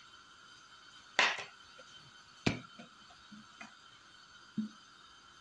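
A few separate knocks and clinks of cookware being handled. The loudest comes about a second in and a sharp click follows about a second later. Smaller knocks come after, over a faint steady hum.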